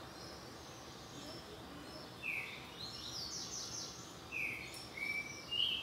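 A bird chirping a series of short calls, starting about two seconds in, over a steady faint background hiss.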